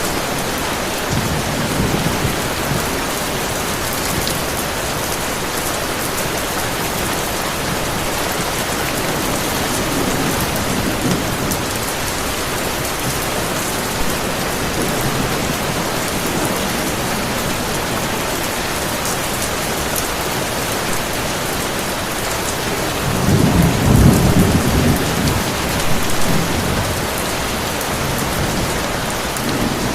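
Heavy rain falling in a steady hiss, with low rolls of thunder, the loudest a bit more than three-quarters of the way through.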